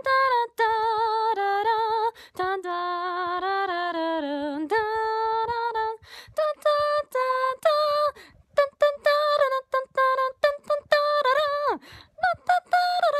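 A woman singing without accompaniment, long held notes with a wavering vibrato, breaking into short, choppy notes from about six seconds in.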